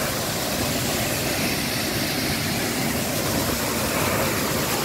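Waterfall: a steady rush of water falling onto rocks.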